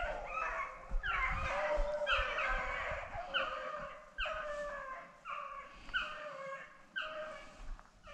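Rabbit hounds baying, a steady string of short bays about two a second with more than one dog calling at once, the sound of hounds running a rabbit's scent trail.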